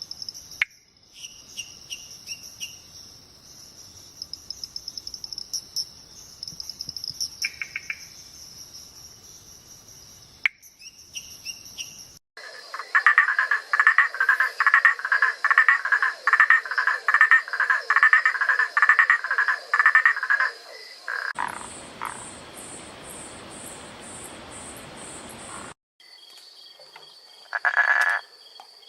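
A sequence of night animal calls joined by abrupt cuts. A steady high insect trill comes first. Through the middle a frog calls loudly in fast, rapidly repeated croaks, then comes a higher, evenly pulsed insect chirping, and near the end another high trill with one short call.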